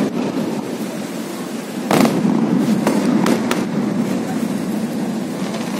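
Aerial firework shells bursting: one loud bang about two seconds in, then three quicker cracks a second or so later, over a steady murmur of a large outdoor crowd.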